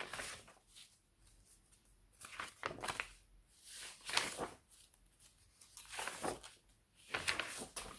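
Sheets of dried tea- and coffee-dyed paper rustling and crinkling as they are handled and turned over, in about six short bursts with quiet between.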